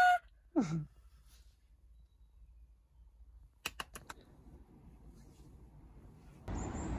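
The end of a woman's excited held cry and a short falling vocal sound, then near silence broken by a quick cluster of three or four clicks. A steady outdoor noise, like wind on the microphone, comes in near the end.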